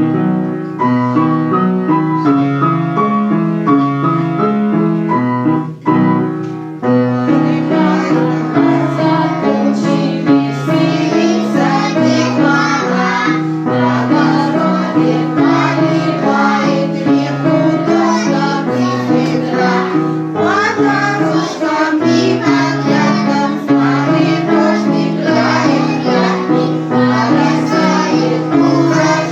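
Children's song: an instrumental introduction with a bouncing keyboard accompaniment, then children singing the melody over it from about seven seconds in.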